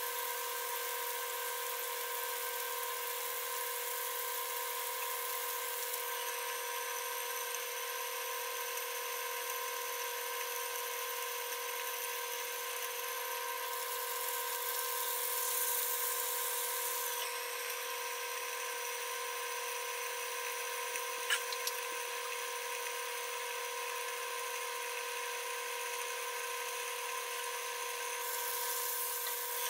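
Boneless chicken breasts frying in oil in a nonstick pan: a steady sizzle under a steady whining tone. The sizzle swells briefly about halfway through as a spatula turns the pieces, and again near the end as a glass lid goes on the pan.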